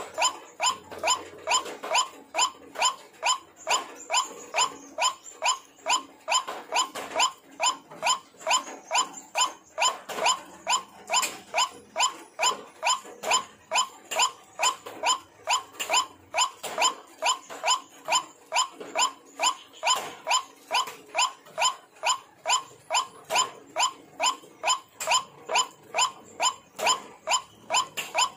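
White-breasted waterhen (ruak-ruak) calling: one harsh call repeated about two to three times a second in a steady, unbroken series.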